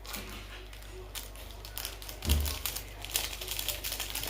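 Irregular clicking and tapping of utensils against a bowl while noodles are mixed with sauce and cheese powder, with one heavier low thump a little over two seconds in.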